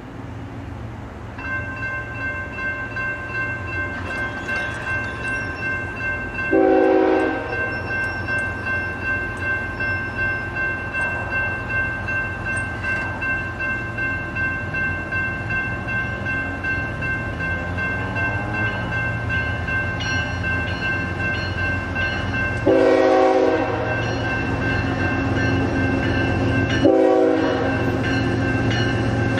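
Union Pacific diesel freight locomotive approaching, its engine rumble growing louder, with a steady ringing that pulses about twice a second, the crossing signal's bell. The locomotive's multi-chime air horn blows three times: a blast about seven seconds in, then a long blast and a short one near the end, the crossing warning pattern.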